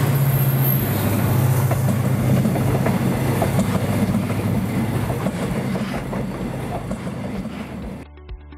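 Diesel locomotive passing close by with a steady low engine drone, then passenger coaches rolling past with a rapid clatter of wheels over the rails that slowly fades. It cuts to music near the end.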